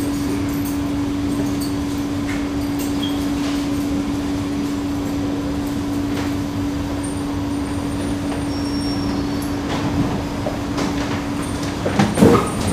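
Inside an MRT train car: a steady electric hum over the train's running noise. About twelve seconds in the hum stops, and a few knocks and clatter follow as the sliding doors open.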